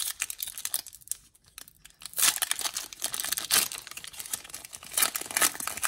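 Foil wrapper of a 1995 Fleer Metal Football card pack being torn open by hand. There are a few sharp crackles at first, then dense crinkling from about two seconds in.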